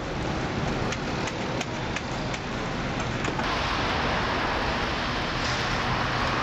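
Steady background noise of street traffic and roadside-stall bustle, with a few faint clicks in the first half. The background changes abruptly about three and a half seconds in.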